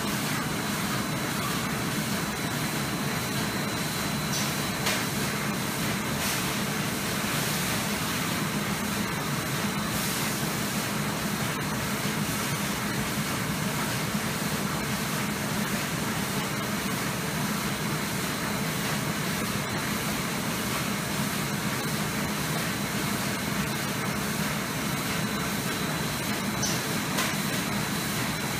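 Many roll-fed plastic-film printing machines running together: a steady mechanical din with a low hum and a faint high whine.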